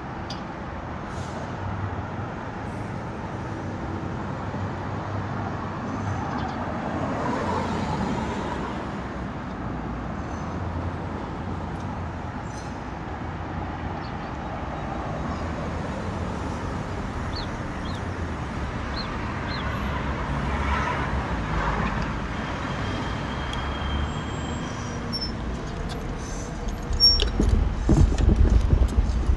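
Road traffic on a city street: a steady hiss of tyres and engines with cars swelling past now and then. About 27 seconds in, a louder low rumble sets in as a car passes close by.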